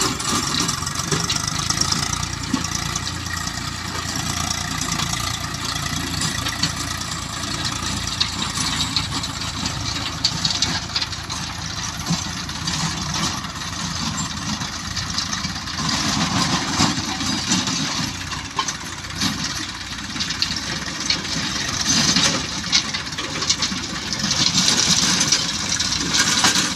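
Several farm tractors' diesel engines running under load while pulling rotavators through the soil, a steady engine noise mixed with the clatter of the tilling blades. It grows louder near the end as the tractors pass close by.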